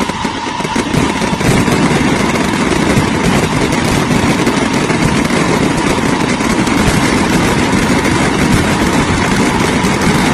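Steady engine noise of road traffic, getting louder about a second and a half in.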